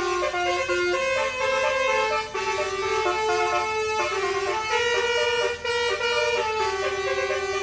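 Bus telolet horn, a multi-tone basuri horn, playing a tune: a continuous run of short notes that step up and down every quarter to half second, with brief breaks about two and five and a half seconds in.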